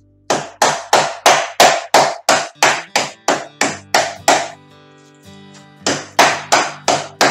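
A small metal saucepan pounding pork chops flat through a plastic bag on a wooden cutting board: a quick run of sharp thuds, about three a second, a pause of over a second, then another run near the end. Background music plays underneath.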